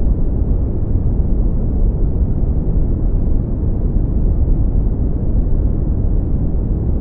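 Deep, bass-heavy brown noise, a steady low rumbling hiss with no change in level or pitch.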